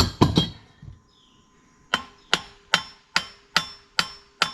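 Hammer striking a steel pin on a mini excavator's thumb mount: a few quick blows, then after a short pause a steady run of ringing metallic blows, about two or three a second.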